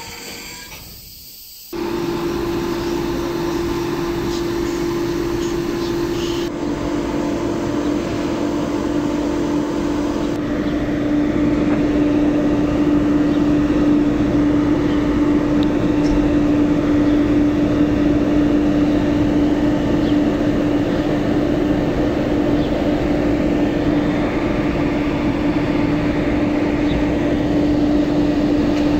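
Two Renfe class 253 (Bombardier TRAXX) electric freight locomotives humming steadily from their traction equipment and cooling blowers, one strong held tone over a rumble. The tone dips slightly in pitch about ten seconds in.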